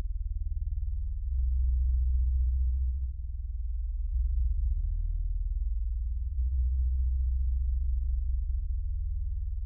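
A deep, steady droning hum of low bass tones with nothing higher above them. Its strength swells and dips every second or two.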